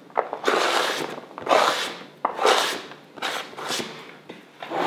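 Fingers scraping chopped red onion across a flexible plastic cutting mat into a bowl, then working it into mashed bean-and-oat dough: a run of about five short rasping strokes.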